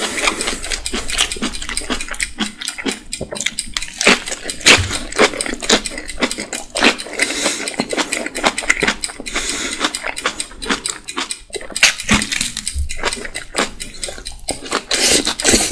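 Close-miked eating: fast, irregular wet chewing, smacking and slurping as napa cabbage kimchi is stuffed into the mouth in big strips by hand.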